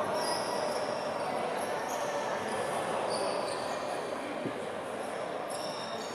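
Basketball shoes squeaking on a wooden court over the steady background noise of a large gym, with a single ball bounce about four and a half seconds in.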